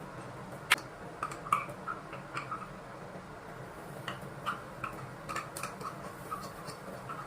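Light irregular clicks and taps, one after another, over a steady low background hum; the sharpest click comes just under a second in.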